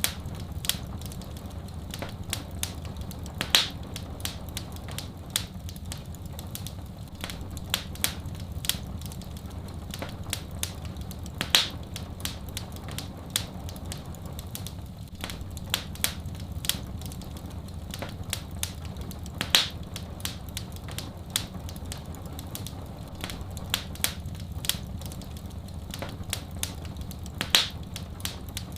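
Wood fire crackling, with many small sharp snaps and a louder pop about every eight seconds, over a steady low rumble.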